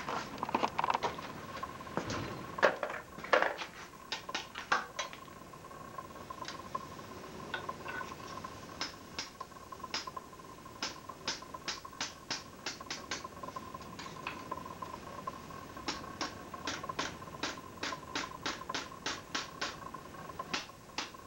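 Hot steel pressed into a water-soaked wood block, the wet wood steaming and crackling with sharp irregular pops, several a second. A few knocks of the tongs and work piece against the block and anvil come in the first few seconds, over a steady faint whine.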